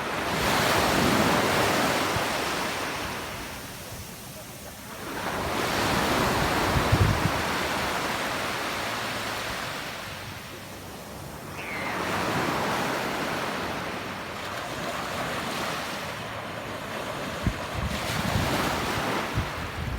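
Sea waves breaking and washing in, the surf swelling and dying away about every five or six seconds, with wind buffeting the microphone now and then.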